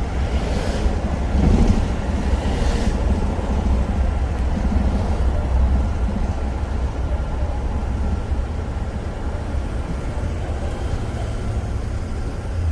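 City bus running, heard from inside the cabin: a steady low engine and road rumble, with two brief hisses in the first three seconds.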